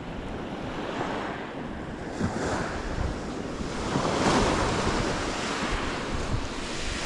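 Sea surf breaking against a rocky shore, with strong wind buffeting the microphone; the surge swells loudest about four seconds in.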